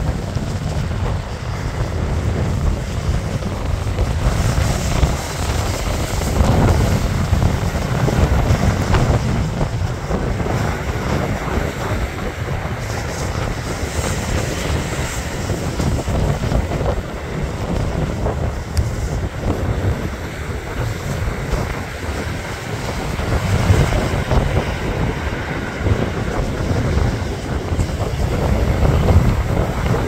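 Strong wind buffeting the microphone with a heavy low rumble, over storm waves breaking and surf washing up a pebble beach.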